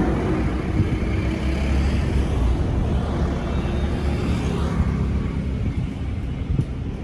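Low, steady rumble of a motor vehicle's engine running nearby, slowly fading.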